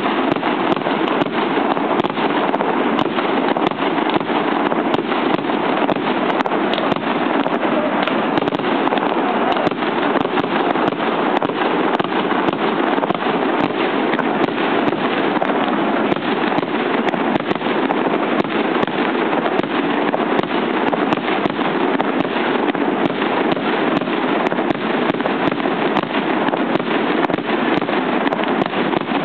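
Fireworks display going off as a dense, continuous barrage: rapid bangs and crackling pile on top of one another without a pause, at a steady loud level.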